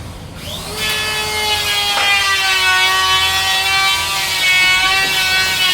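Electric power tool cutting wood, a steady high whine that starts about a second in, its pitch sagging slightly as the blade takes the load.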